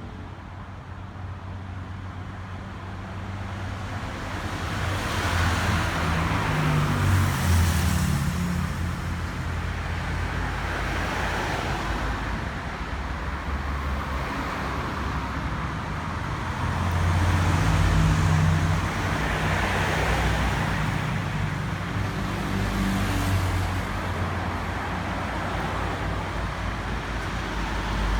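Road traffic: motor vehicles running and passing, with a low rumble and tyre hiss that swell louder several times as vehicles go by.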